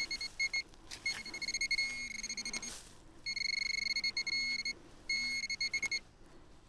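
Metal detector beeping over a buried metal target: a high tone in quick short pulses, then held as longer steady tones, broken by a short rustle about two seconds in.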